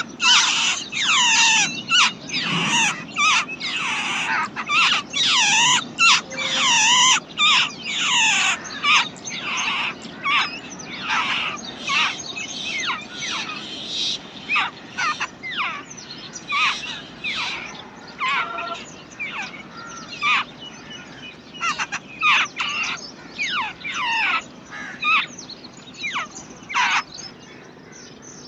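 Babbler nestlings begging at the nest: a dense, rapid run of high, short chirps, busiest in the first third and thinning to scattered chirps towards the end.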